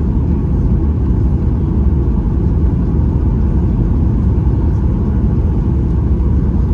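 Steady low rumble of a Boeing 737-8 MAX heard from inside the passenger cabin: engine and airflow noise.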